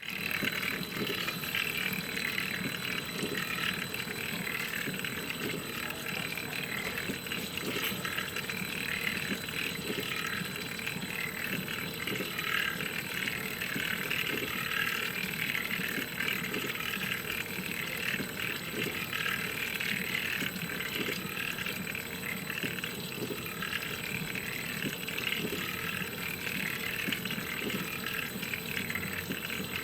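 Engine crankcase being turned slowly by an electric motor at 100 RPM: a steady whirring noise with faint irregular ticks, the abnormal noise being checked inside the crankcase.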